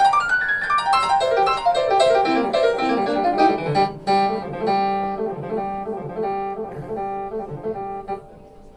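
Jazz played on a grand piano: quick runs of notes early on, then the same notes and chords struck over and over, ringing and dying away near the end.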